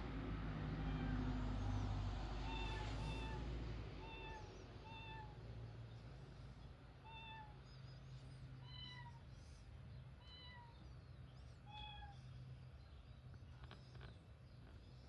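Short cat meows played from a meow piano app, about a dozen brief identical-shaped calls at differing pitches, one after another like notes on a keyboard. A low rumble sits underneath, louder for the first four seconds.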